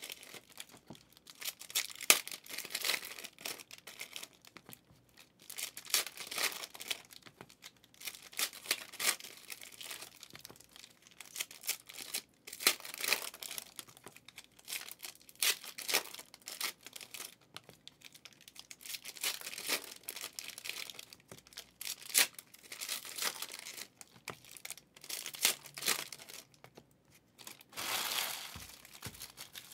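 Plastic-wrapped packs of trading cards being torn open and their wrappers crinkled: a string of short, irregular ripping and rustling sounds.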